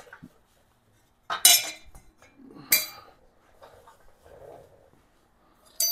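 Steel motorcycle exhaust pipes, the stock exhaust and a new header pipe, clinking against each other as they are handled: three sharp metallic clinks with a short ring, the loudest about a second and a half in.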